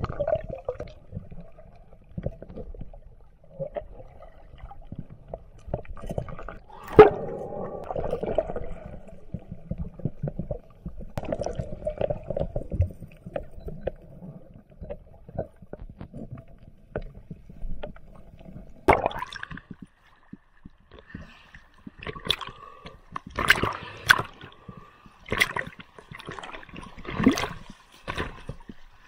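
Water heard through an underwater action camera during a free dive: muffled gurgling with scattered knocks, then a run of sharper splashes in the last ten seconds, with the surface splashing at the boat's swim ladder near the end.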